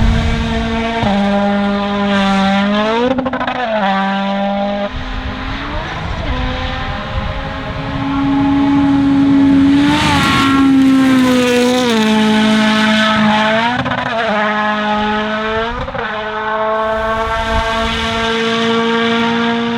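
Toyota Yaris WRC rally car's turbocharged four-cylinder engine driven hard. The engine pitch holds, then jumps in quick steps as gears are changed, with several rapid downshifts as it brakes and then pulls away again. The sound is loudest about ten seconds in, as the car passes closest.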